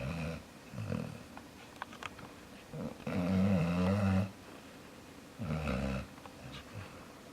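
Chocolate Labrador puppy snoring in its sleep, a snore every two seconds or so, the longest and loudest lasting about a second and a half near the middle.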